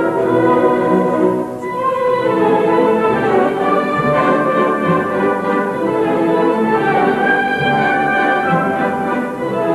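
Orchestral classical music, with many instruments holding sustained notes.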